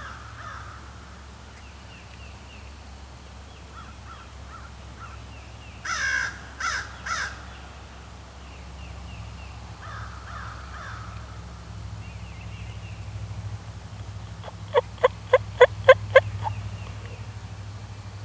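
American crow cawing three times, loud and harsh, about six seconds in, with faint distant calls, likely turkeys gobbling, near the start and middle. Near the end comes a quick, evenly spaced run of seven sharp, loud notes.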